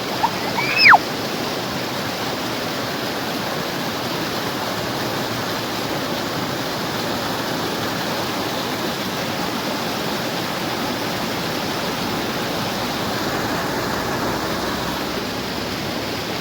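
Steady, even rushing noise with no rhythm or pitch. A short rising-and-falling squeal comes in about half a second in.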